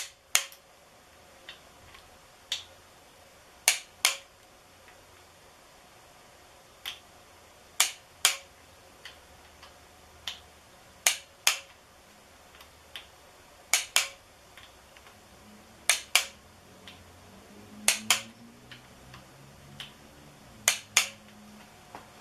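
Sharp clicks, mostly in pairs a fraction of a second apart, every two to four seconds, from tools and hands working the cam sprocket and timing set on the front of an LS V8 engine block.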